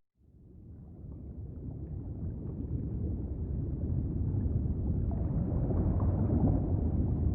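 Low rumbling background noise fading in from near silence and growing steadily louder, with no clear pitch or rhythm.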